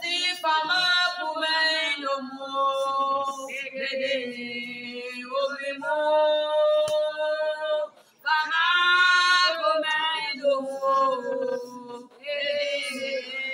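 Voices singing a slow worship song in long held notes, with a brief break about eight seconds in.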